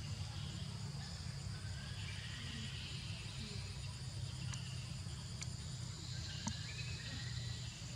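Steady insect chirring, high and even, over a low steady hum, with a few faint clicks about halfway through.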